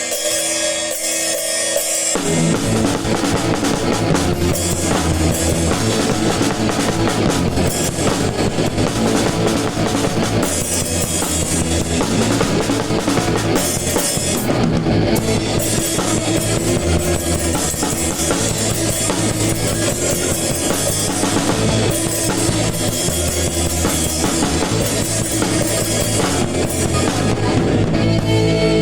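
A band playing ska around a PDP Encore drum kit, with electric guitar; the full band comes in about two seconds in.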